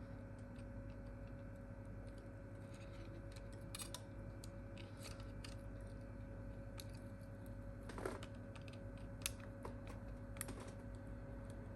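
Scattered faint clicks and taps of small parts and tools being handled while fitting a smartphone's replacement screen, over a steady low hum.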